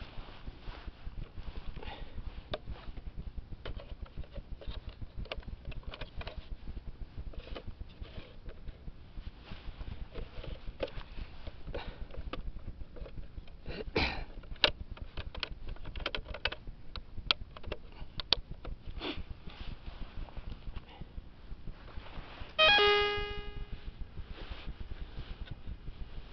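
White's Spectrum XLT metal detector giving one ringing beep that dies away within about a second, near the end. Before it come scattered clicks and knocks of the detector being handled, loudest about halfway through.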